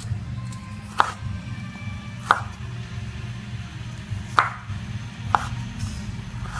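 Kitchen knife slicing sweet potato into thin strips on a wooden cutting board: four sharp knocks of the blade on the board, one to two seconds apart.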